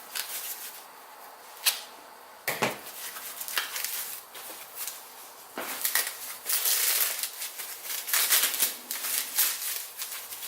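A package being opened by hand: crackly rustling of wrapping, denser in the second half, with a few sharp knocks of parts being handled in the first half.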